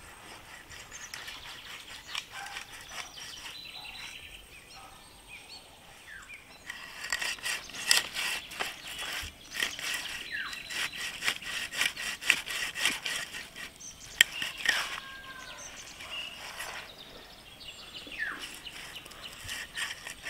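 Fish scales being scraped off a katla fish, in quick repeated rasping strokes that set in about a third of the way in and run on at several strokes a second. Birds chirp throughout.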